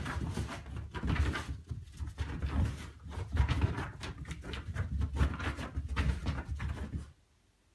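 A small dog chasing a laser dot on carpet: irregular thumps and scuffles of its paws as it pounces and turns. The sounds stop about seven seconds in.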